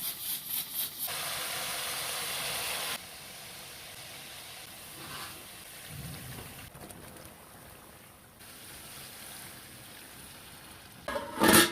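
Food frying and sizzling in hot oil in a pan, in a few separate stretches: loudest during the first few seconds, quieter after. A short, loud sound just before the end.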